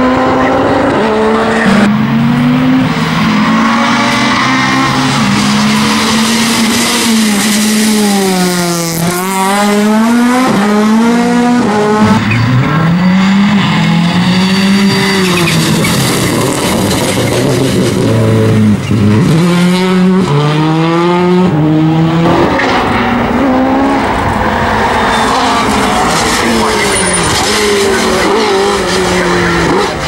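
Rally car engines revving hard and changing gear as the cars accelerate and brake through chicanes, with a car passing close about nine seconds in and its pitch dropping, and some tyre squeal. The cars include a Škoda and a Ford Focus WRC.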